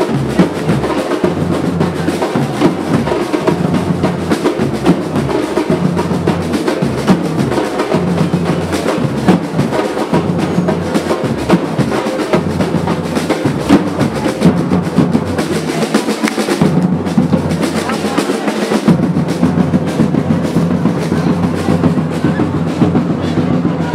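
Drums playing a fast, continuous beat of rolls and strikes, with the deep drum easing off briefly about two-thirds of the way through.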